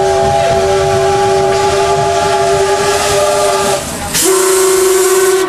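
Steam locomotive whistle blowing twice: a long steady blast that stops about four seconds in, then after a brief break a shorter, wavering blast with a loud rush of escaping steam, cut off sharply at the end. The low running rumble of the train carries on underneath.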